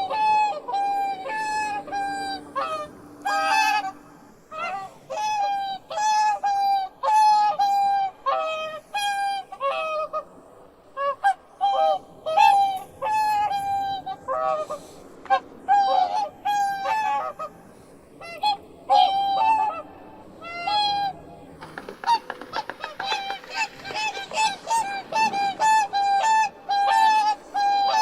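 Swans calling: a steady run of short, nasal honks, about one or two a second, several birds overlapping, with a denser chorus of calls joining near the end.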